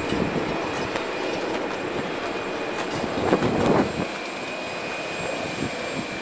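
Jet aircraft engines running: a steady rumble under a high, steady whine, with a brief louder swell a little over three seconds in.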